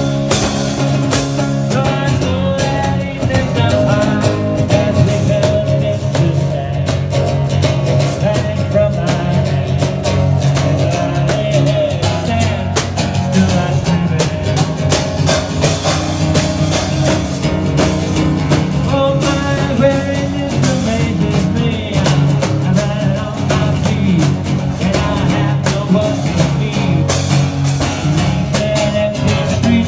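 One-man band playing: a strummed guitar with drums and a cymbal worked from a backpack rig, keeping a steady beat.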